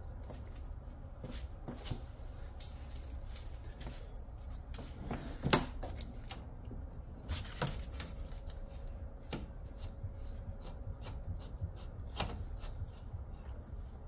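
Scattered light clicks, taps and scrapes of a braided hose's fitting being handled and threaded onto a tankless water heater's brass cold-water service port, with a sharper knock about five and a half seconds in and another near seven and a half seconds.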